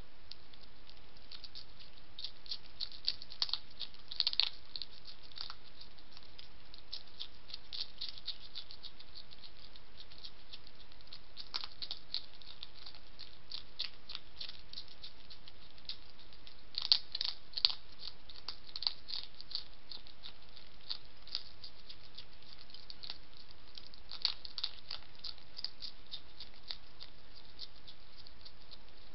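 European hedgehog crunching food from a dish: quick, crisp chewing clicks in bouts, busiest about four seconds in and again about seventeen seconds in, over a steady background hiss.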